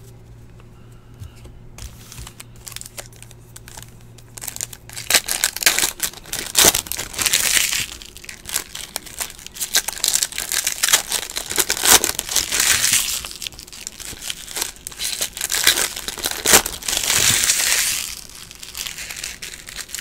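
A foil trading-card pack wrapper being torn open and crinkled by hand. After a quiet first few seconds, the crinkling starts about five seconds in and comes in several loud bouts.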